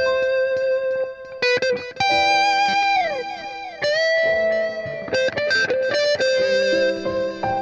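Background music: an electric guitar playing a melody of single notes, with a few notes sliding down in pitch about three seconds in.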